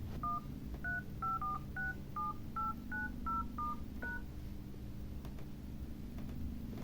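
Phone dialer keypad on a Tecno DroidPad 7D tablet beeping as its keys are tapped: about eleven short two-note touch-tones in quick succession over roughly four seconds, the low note stepping upward as the presses move down the keypad rows. The keys respond to each tap, a sign that the newly fitted touch panel works.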